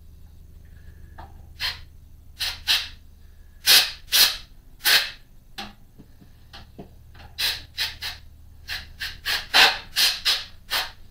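Compressed-air blow gun giving a run of short puffs, about fifteen at irregular intervals, blowing drill chips out of the lathe's electrical box.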